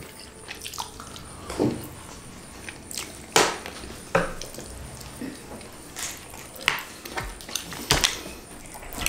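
Close-miked eating sounds: wet mouth smacks and chewing as biryani rice is eaten by hand, in scattered sharp clicks at irregular intervals, a few louder ones about a third of the way in and near the end.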